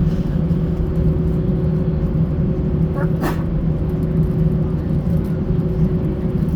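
Steady cabin rumble and low hum inside an Airbus A320 with its engines running on the ground before takeoff. A single brief sharp sound cuts through about three seconds in.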